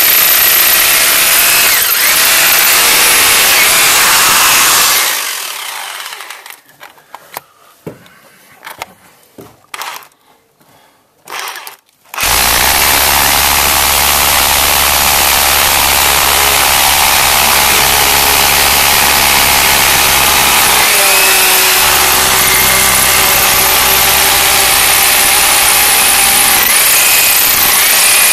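Power drill with a long bit boring down into a wall footing. It runs steadily, stops about five seconds in, and a few scattered knocks follow. It starts again about twelve seconds in and runs on, with a brief dip partway through.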